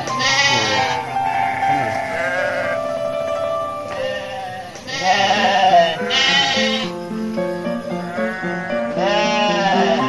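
Sheep bleating repeatedly, about five long, wavering calls, over background music.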